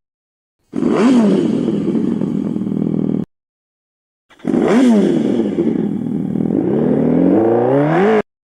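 Revolt RV400 electric motorcycle's artificial engine sound played through its speaker, heard twice as the bike is throttled: each time the pitch dips and then climbs, the second time rising steadily near the end. Both sounds cut in and out abruptly.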